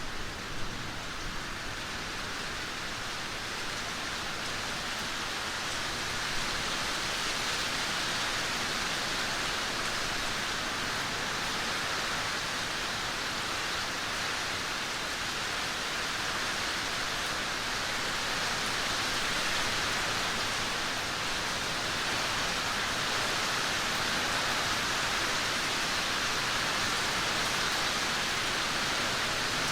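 Heavy rain downpour: a steady, dense hiss of rain pouring down.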